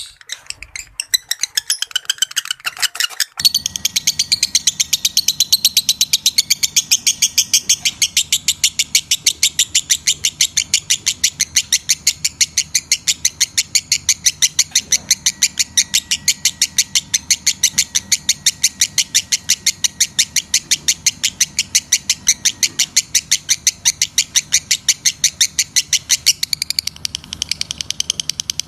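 Lovebird chattering in a long unbroken run of rapid, high, shrill chirps, about five a second. The run starts about three seconds in, over a faint steady hum.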